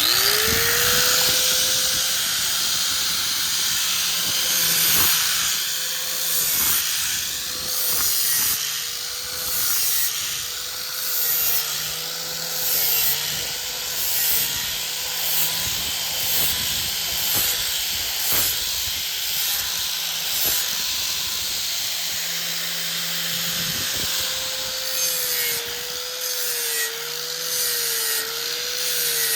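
Electric sander spinning up and running while the steel edge of a folding survival shovel is ground against its abrasive, a dense hissing grind over the motor's hum. The motor's pitch wavers repeatedly near the end as the blade is pressed on and eased off.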